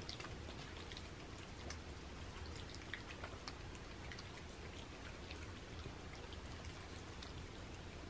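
Several cats eating wet tuna cat food mixed with water: faint, irregular wet smacking and lapping clicks.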